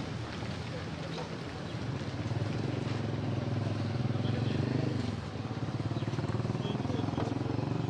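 A motor engine running, a steady low drone that grows louder about two seconds in.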